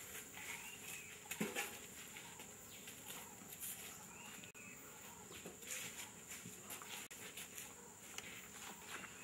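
Faint forest ambience: a steady high-pitched insect drone, with a short arched chirping call three times, about four seconds apart.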